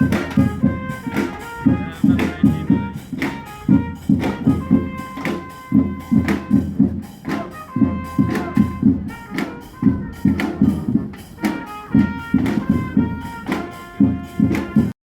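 A street brass band playing live: a brass melody over a steady drumbeat. It cuts off suddenly near the end.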